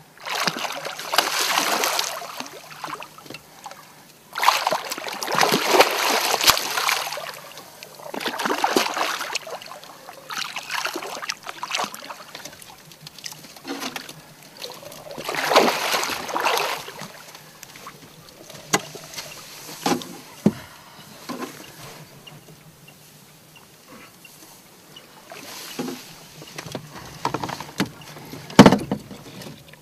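Wels catfish thrashing at the surface beside an inflatable boat, splashing water in several bursts of a second or two, with scattered knocks and one sharp knock near the end.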